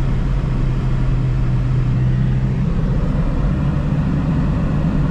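Car engine and road noise heard from inside the cabin while driving slowly through town streets. A steady low engine hum eases off about halfway through.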